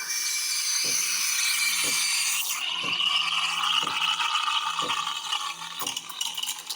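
Coffee maker brewing: steam hissing and water rattling and gurgling through its pipe, with a low pulse about once a second. It sounds so weird.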